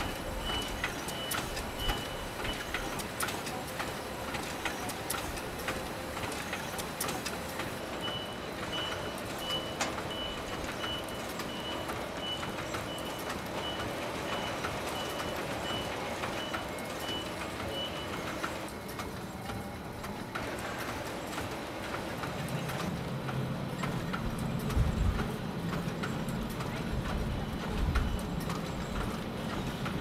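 Soap-factory machinery running with a dense clatter of small clicks and knocks, and a high electronic beep repeating steadily near the start and again for about ten seconds in the middle. Past the two-thirds point the sound changes to a lower steady hum with a few heavier thumps.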